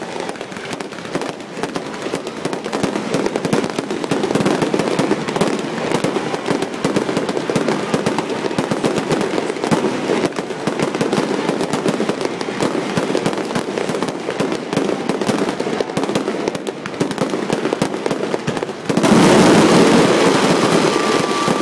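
Aerial fireworks going off in a dense, continuous barrage of bursts and crackling, jumping suddenly louder near the end, with a short whistle sounding just after.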